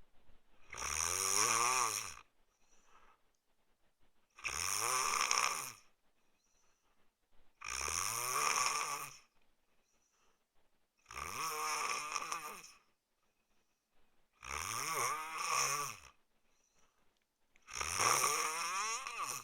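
A man snoring in his sleep: six loud snores on the in-breath, one about every three and a half seconds, each lasting about a second and a half, with faint breaths in between.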